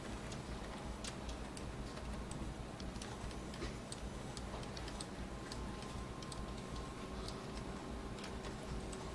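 Light, irregular clicking of a computer mouse, a few clicks a second, over a steady low hum.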